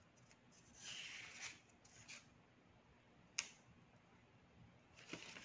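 Faint rustling of a paper instruction manual being handled, its pages moving about a second in and briefly again near two seconds, with one sharp click a little past three seconds.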